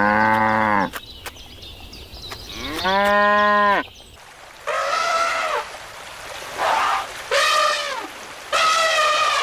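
Cattle mooing in a run of separate calls: two long, deep moos, then four shorter, higher-pitched ones.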